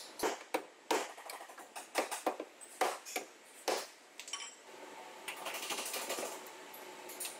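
Sharp metal clicks and knocks, one every half second to a second, then a denser rattling clatter over the last few seconds, as a replacement rear door is handled and fitted onto a Toyota Levin's body.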